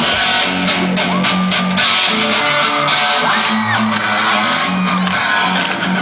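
Band playing an instrumental passage of a pop-rap song: strummed guitar and bass under a melody line that bends and slides in pitch.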